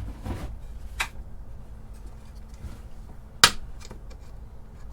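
A small click, then a single sharp metallic knock about three and a half seconds in, as a small indexing jig with a switchable magnetic base is set down and fixed on the lathe bedways.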